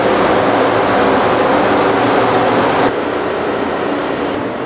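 Pressure washer blasting a screen-printing screen in a washout booth: a loud, steady hiss of the water jet over the washer's drone. About three seconds in the sound drops a little and changes, still a steady noise.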